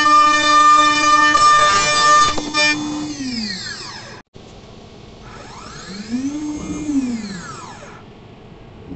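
CNC wood lathe's stepper motor drives whining as the machine moves. A steady high whine slides down in pitch about three seconds in as the axis slows. After a short break, a quieter whine climbs and then falls in pitch as the carriage speeds up and slows down on another move.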